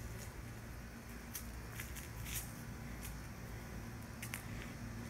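Scattered soft crunching footsteps, a handful of short sharp scuffs, over a steady low hum.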